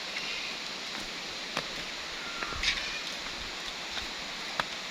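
Steady rushing of stream water, with a few scattered light clicks and knocks.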